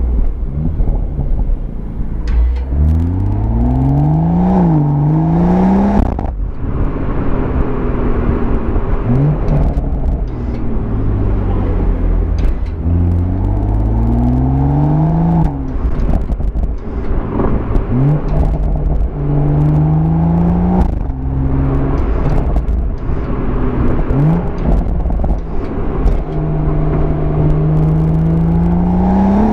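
BMW M140i's turbocharged 3.0-litre straight-six and exhaust accelerating hard through the gears: the engine note climbs in pitch, drops sharply at each shift and climbs again, several times over. Short sharp cracks come from the exhaust between the pulls.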